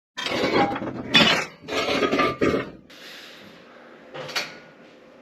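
Metal clanking and clattering of steel parts or tools being handled, with a sharp clank about a second in, then quieter handling noise and one more click near the end.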